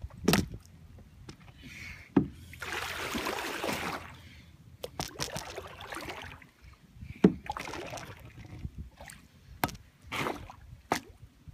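Kayak being paddled through shallow street floodwater: paddle strokes dipping and splashing, with a longer wash of splashing about two and a half seconds in. Scattered sharp knocks run through it.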